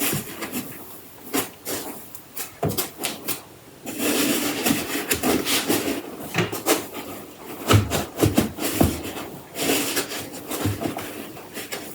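Hands handling packaging: rubbing and scraping with scattered knocks, clicks and a few low thumps about two-thirds of the way in.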